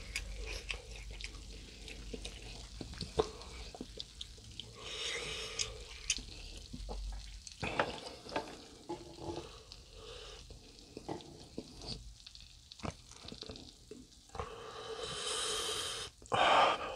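Hand-assembling a napa cabbage wrap: leaf crinkling, then wooden chopsticks clicking and scraping on a metal grill plate as they pick up sticky stir-fried pork, over a light sizzle from the grill. The loudest scrape comes near the end.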